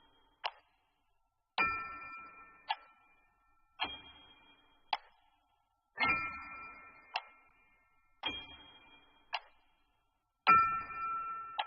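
A metallic ding that rings on and fades, five times at even spacing about two seconds apart, each followed about a second later by a short sharp click.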